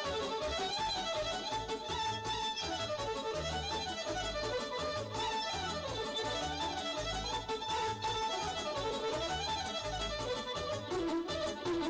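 Live band playing a Balkan kolo dance tune: an ornamented lead melody over a bass line and a steady drum beat.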